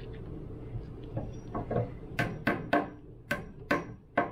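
Hammer tapping glued wooden plugs into screw holes in a wooden cross brace. A few soft knocks, then about six sharp taps roughly half a second apart from about halfway through.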